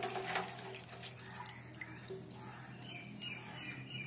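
Water splashing faintly as a hand swishes cluster beans around in a steel basin of turmeric-and-salt water to wash them.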